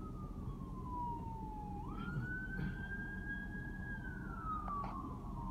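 A single high wailing tone that glides slowly down, sweeps quickly back up about two seconds in, holds, then slides down again, over a steady low rumble.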